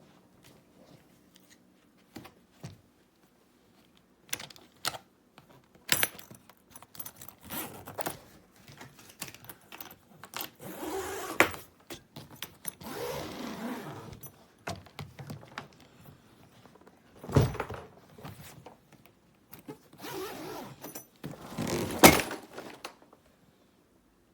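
Hard-shell suitcase being handled: scattered clicks and rattles, stretches of rasping noise, and two loud thumps, about 17 and 22 seconds in.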